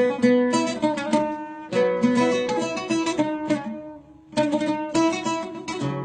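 A plucked string instrument playing a run of quick melodic notes in an instrumental break of a Syrian folk song, with a short pause about two-thirds of the way through before the playing resumes.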